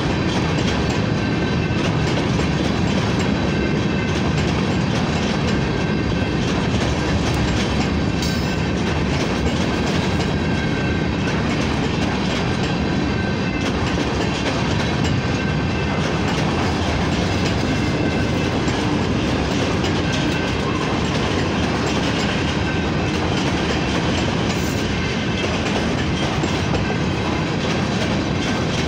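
Canadian Pacific freight train of covered hopper cars rolling past at close range: a steady, loud rumble and clatter of steel wheels on the rails.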